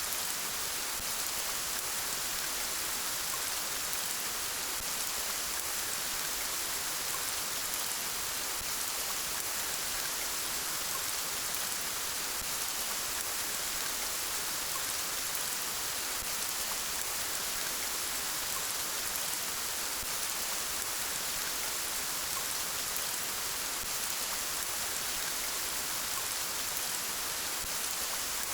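Steady rain falling, a continuous even hiss of many drops that neither builds nor fades.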